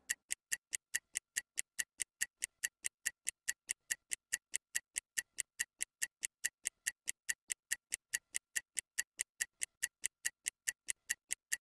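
Steady clock-like ticking from a workout timer sound effect, about four even ticks a second, marking time through an exercise interval.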